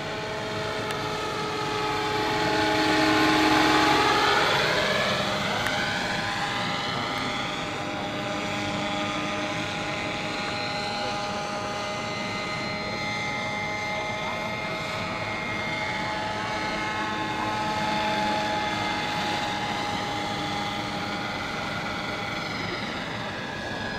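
Radio-controlled scale AS350 Ecureuil model helicopter in flight: a steady whine of rotor and drive tones. About three to four seconds in it swells as it passes close, and its pitch drops as it goes by.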